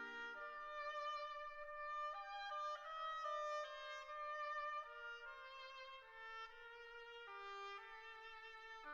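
Instrumental background music: a melody of held notes that change every half second or so.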